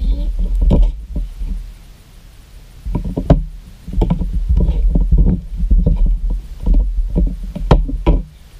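Slime being kneaded and squished by hand in a plastic bowl: wet squelching and popping with dull bumps of the bowl, in spells with a lull about two seconds in.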